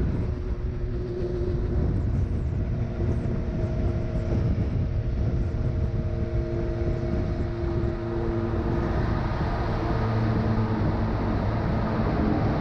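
Motorcycle riding at motorway speed: a steady engine note under continuous wind and road noise. About two-thirds of the way in the sound changes as the bike enters a road tunnel.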